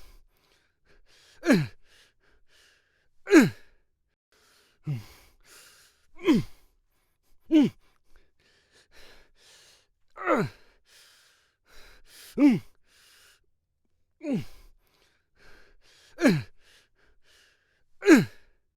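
A man's fight grunts: about ten short, forceful vocal grunts, one every second or two, each dropping in pitch, with fainter breathy huffs between them.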